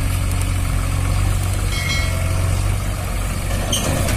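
Diesel engines of a New Holland 3600-2 tractor and a JCB 3DX backhoe loader running steadily at low revs. There is a brief high clink near the end.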